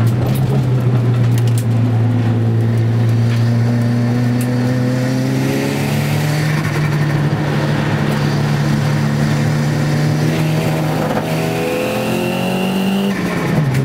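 Nissan Gazelle's turbocharged CA20DET four-cylinder engine heard from inside the cabin, pulling hard with the revs climbing, dropping at a gear change about six seconds in and climbing again. Near the end the note changes and a high whine sounds for about two seconds before the revs fall.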